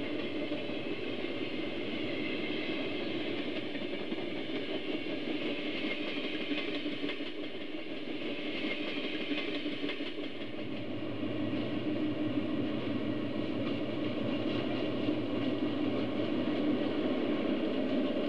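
HO-scale model trains running on the layout track: the steady hum of the locomotives' electric motors and the rumble of the wheels on the rails, a little louder near the end.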